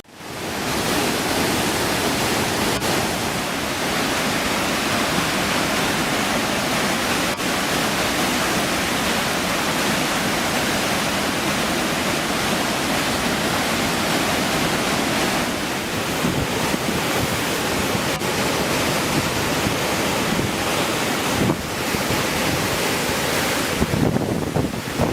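Swollen stream in flood, its water rushing loudly and steadily.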